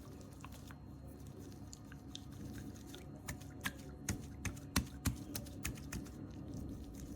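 Slime being handled, giving an irregular run of sharp little clicks and pops that bunch up in the middle, over a steady low hum.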